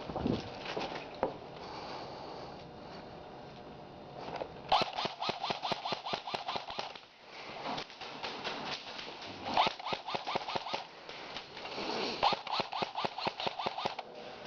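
Airsoft electric guns firing full-auto bursts, a fast run of sharp clicks. There are three bursts: about five seconds in, near ten seconds, and near the end.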